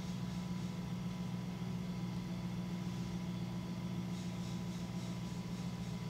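Electric potter's wheel motor running with a steady low hum while a tall clay jar is thrown on it.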